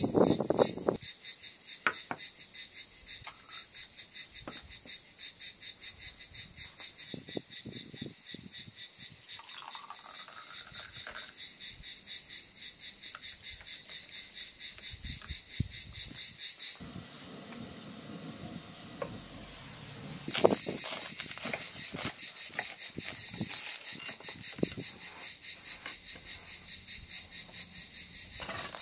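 Crickets chirping in a steady, fast rhythm, about three to four chirps a second, with occasional light clinks of tableware and a short trickle of tea poured into a glass.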